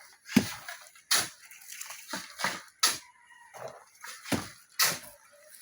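Footsteps crunching on loose dirt fill, irregular, about one or two a second.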